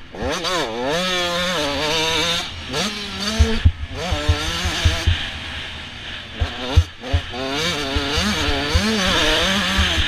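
Motocross bike engine revving up and down as it is ridden over a rutted dirt track, heard from a helmet-mounted camera. The pitch climbs sharply about half a second in, then falls and rises again several times as the rider backs off and accelerates, with short low thumps throughout.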